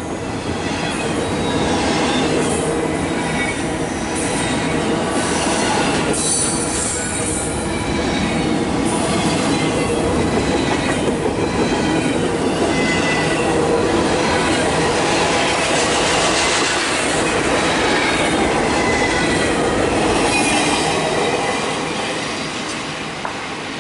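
Freight train of double-stack intermodal well cars rolling past at close range: a steady loud rumble of steel wheels on rail, with thin high squealing tones from the wheels. It fades a little near the end.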